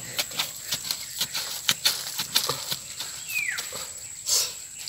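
Irregular clicks, knocks and scrapes of a wooden stick digging into the soil among sweet potato vines. A steady high-pitched whine sounds behind them.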